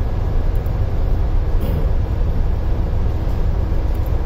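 Steady low rumble of a ship's machinery with the ME slow-speed two-stroke main engine running, heard from inside the engine control room.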